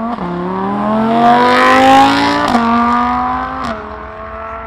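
A car accelerating hard past, its engine and exhaust note climbing in pitch and dropping at each upshift: right at the start, about two and a half seconds in, and again just before four seconds. It is loudest as it passes about two seconds in, then fades away.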